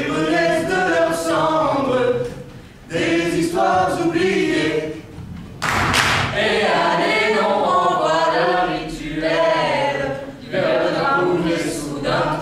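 Group of performers singing together in chorus without accompaniment, in phrases broken by short pauses.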